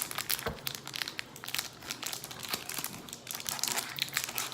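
Foil wrapper of a Pokémon trading-card booster pack crinkling and crackling in the hands as they work at tearing it open. The pack is hard to open.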